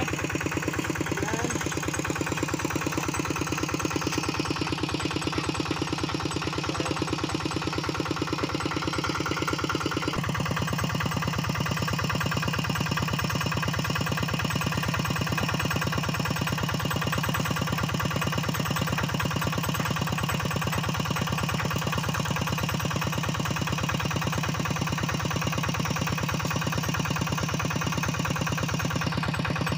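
The single-cylinder diesel engine of a Quick Impala two-wheel hand tractor idling steadily with an even firing rhythm. About ten seconds in, its sound turns fuller and deeper.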